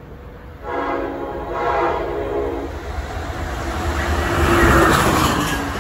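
Amtrak ACS-64 electric locomotive sounding its horn in two blasts about a second in, then the rushing rumble of the train growing louder as it closes in and passes.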